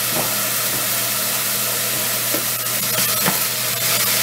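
Diced eggplant sizzling in hot oil in a stainless steel pot on an induction cooktop as its moisture cooks off, over a steady low hum. From about halfway in, a wooden spatula stirs and knocks against the pot.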